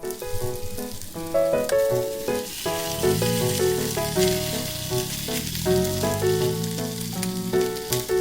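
Background piano music with stepped notes over a steady sizzling hiss with fine crackles.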